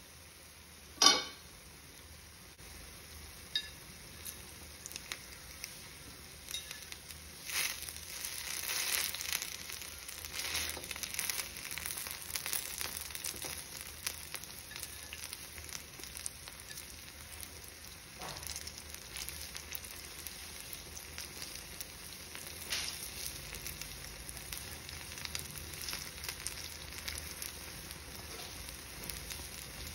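Kuli paniyaram sizzling in oil in a paniyaram pan: a steady sizzle with scattered ticks and short louder spells as the balls are turned with a thin metal skewer. One sharp metallic clank about a second in is the loudest sound.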